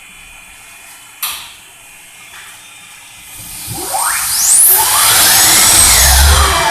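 Turbocharger cartridge spinning up on a high-speed balancing machine. A short burst of hiss comes about a second in, then from about three and a half seconds a loud whine rises steeply in pitch over rushing air as the rotor accelerates to balancing speed.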